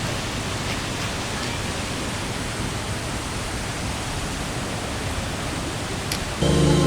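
Waterfall rushing in a steady, even hiss of falling water. About six and a half seconds in, loud background music cuts in over it.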